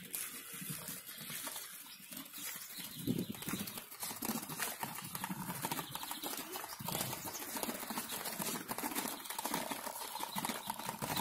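Small plastic wheels of a child's three-wheeled kick scooter rolling and rattling over brick paving stones, a quick run of clicks as they cross the joints.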